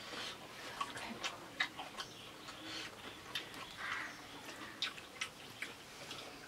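Faint, irregular crackles and clicks of crisp pani puri shells being cracked open and eaten.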